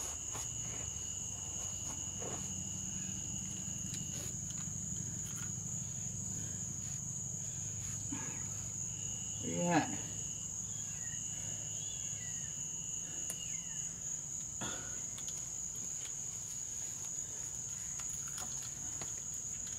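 Night insects keep up a steady high-pitched trill, with a second, lower insect note starting and stopping, over a low steady hum. About halfway through there is a brief voice-like call.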